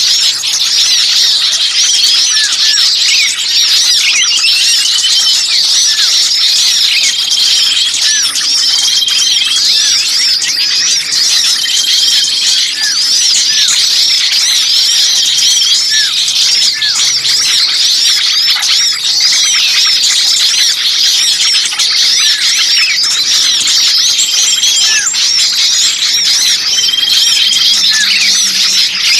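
Bird-lure recording of many small birds calling at once: a dense, continuous chatter of high-pitched chirps and squeaky, agitated calls overlapping, with a short flat note recurring every couple of seconds. This is a noisy small-bird commotion of the kind played to attract birds.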